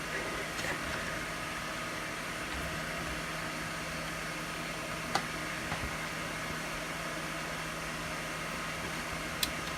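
Steady whir of an open Pentium 4 desktop PC's fans and drives running, with a low hum under it. A few short clicks come about halfway through and near the end.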